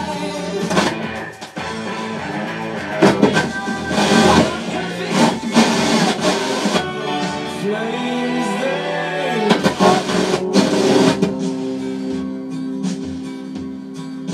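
Music from an FM radio station playing through a 1978 Marantz 2265B stereo receiver, turned up loud.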